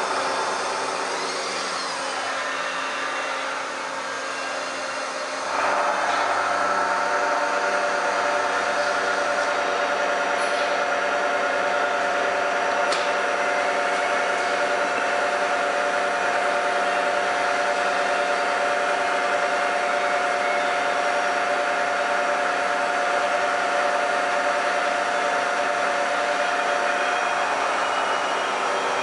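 South Bend Model 2VH vertical milling machine running under power, a steady whine made up of several tones. About five and a half seconds in it gets louder and new steady tones join in, after a few seconds of sliding pitch.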